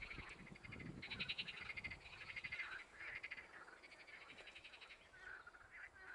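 Faint chorus of rapid rattling animal calls: trains of quick, evenly spaced pulses in phrases about a second long, repeating over and over, overlapping and strongest just over a second in.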